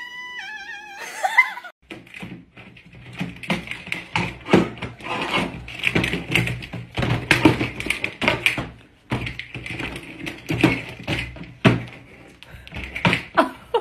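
A black kitten's short drawn-out meow, then irregular tapping and knocking of a clear plastic bowl as grey cats clamber on and around it.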